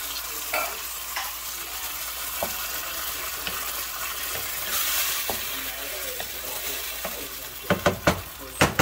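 Canned diced tomatoes sizzling in a hot nonstick skillet of browned meat, green onions and peppers while a spatula stirs and scrapes through them. There are a few sharp clacks near the end.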